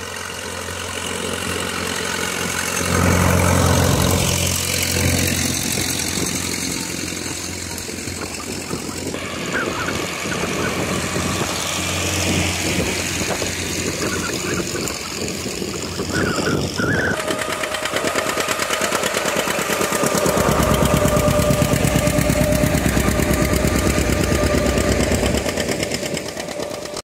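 Antique farm tractor engines running. The sound changes abruptly about seventeen seconds in, and from about twenty seconds in a steady, low, even firing beat is the loudest thing.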